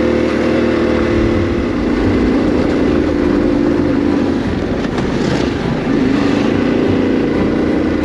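Yamaha Ténéré 700 World Raid's 689 cc parallel-twin engine running steadily under throttle, pulling the bike up a steep gravel climb. A brief hissing rush comes in about five to six seconds in.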